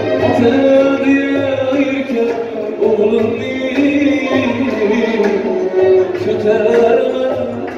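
Live band music with drum percussion and a gliding melody line.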